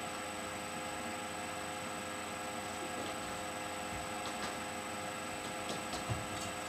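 Steady hiss and electrical hum, with a few faint clicks about four and six seconds in.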